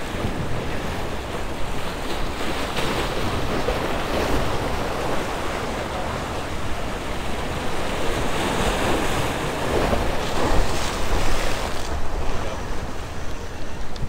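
Surf washing and breaking over the boulders of a rock jetty, a continuous wash that swells louder now and then, with wind buffeting the microphone.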